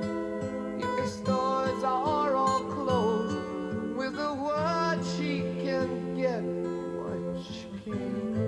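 A song with acoustic guitar and a singing voice, played through Yamaha NS-E55 bookshelf speakers driven by an Onkyo CR-N765 network receiver.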